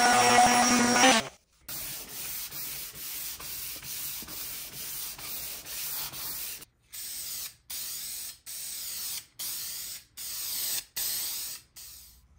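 An electric palm sander runs on the epoxy-coated skateboard deck for about a second and then cuts off. Then comes hand sanding with a sanding sponge over the epoxy, quieter back-and-forth scraping strokes about two a second, which become longer, separate strokes a little over one a second in the second half.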